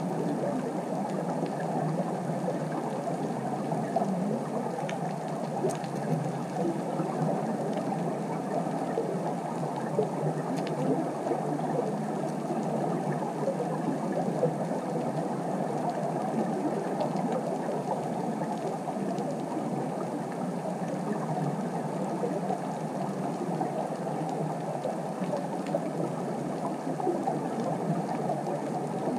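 Underwater ambient noise picked up by a camera on the seabed: a steady, muffled rushing, with a few faint clicks.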